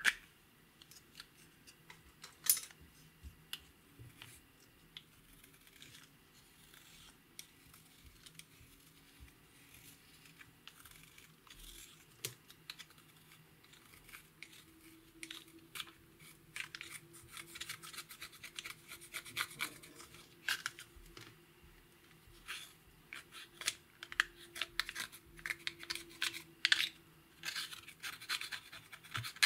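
Small plastic spatula scraping and crumbling a pressed eyeshadow pan, a run of dry, irregular scratches that grows busier in the second half. Two sharp clicks near the start come from the plastic compact being handled and opened.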